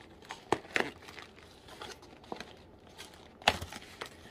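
Paper takeaway bag and plastic carrier bag crinkling and rustling as hands pull them open. There are a few sharp crackles, the loudest about three and a half seconds in.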